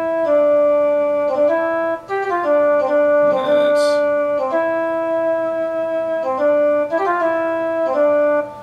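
Altura MIDI theremin played by hand over its sonar sensors, sounding a sustained synthesizer voice through a MIDI sound module; the pitch steps between notes several times, some held a second or more. The notes jump rather than slide: the portamento setting has not taken effect because its data value has not yet been set.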